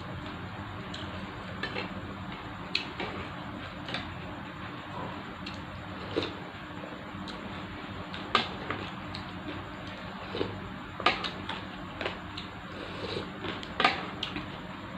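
Cutlery clinking against a bowl while eating noodle soup: irregular sharp clinks, a few louder ones in the second half.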